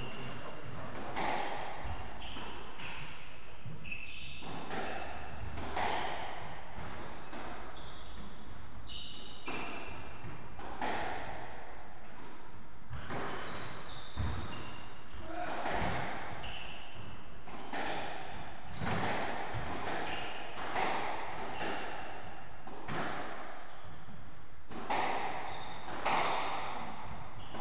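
Squash rally: the ball smacking off rackets and the court walls every second or two, each hit echoing in the enclosed court, with short squeaks of shoes on the wooden floor between hits.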